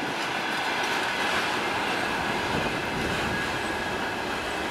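Wagons of a railway work train rolling past on the track: a steady rumble and rush of steel wheels on rails.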